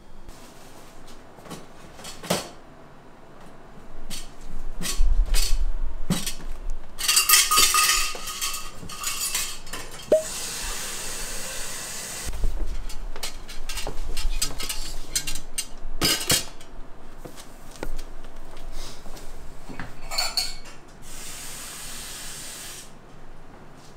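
Bar tools and dishes being handled: clinks, clatters and sharp knocks, with a few stretches of rushing hiss lasting a second or two.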